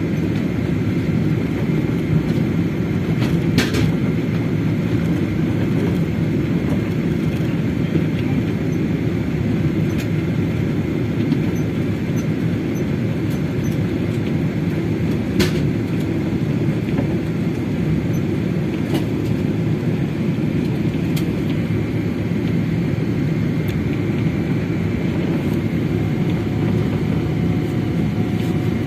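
Steady low rumble inside the passenger cabin of a Boeing 777 airliner taxiing, with a couple of faint clicks.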